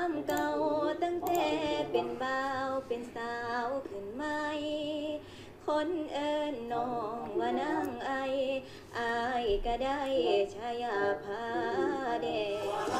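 A young girl singing solo into a handheld microphone, with long held notes that waver in pitch and short breaks between phrases.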